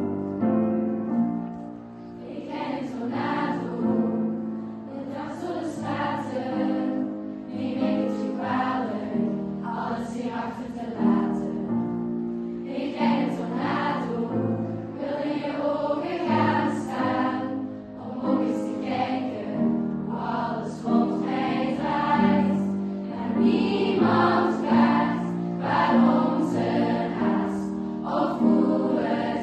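Background music: a choir singing a slow piece, with a keyboard accompaniment.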